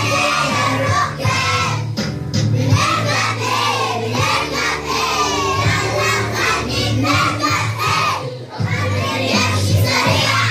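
A group of young children singing together over a music track with a steady bass line.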